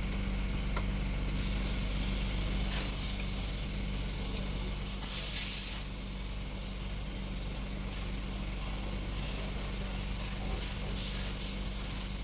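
Steady machine hum with a continuous hiss starting about a second in.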